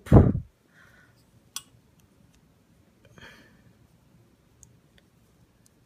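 A brief low thump at the very start, then faint scattered clicks and rustles of a crochet hook and yarn being worked by hand.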